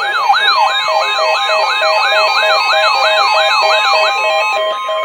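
Electronic siren wailing in fast sweeps, about three a second, over a steady pulsing beep. Near the end the sweeps stop and a steady alert tone begins, the attention signal that opens an Emergency Alert System warning.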